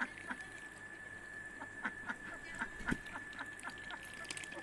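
Domestic ducks quacking in short separate calls, with a quick run of quacks through the middle, over a steady high-pitched whine. A dull thump comes about three seconds in.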